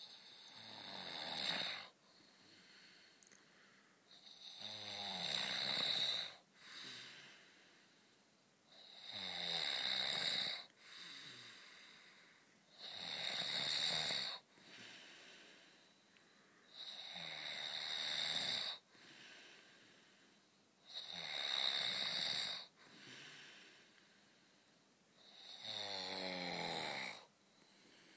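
A man snoring heavily in sleep: seven loud snores, one about every four seconds and each lasting a second and a half to two seconds, with quieter breaths between them. The uploader puts the snoring down to a blocked nose.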